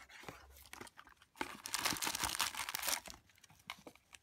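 Foil trading-card booster packs crinkling and rustling as they are handled, loudest for about a second and a half in the middle, with a few light clicks and taps around it.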